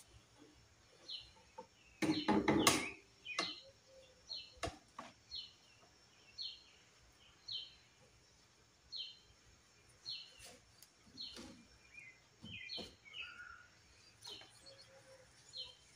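A bird chirping over and over, one short falling chirp about once a second. A few loud knocks and clatter come about two to three seconds in, with a single sharp click a couple of seconds later.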